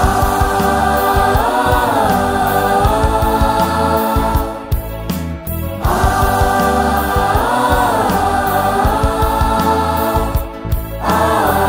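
Mixed choir singing a Kokborok gospel song in long held chords over band accompaniment. Two long phrases, each with a rise and fall in pitch partway through.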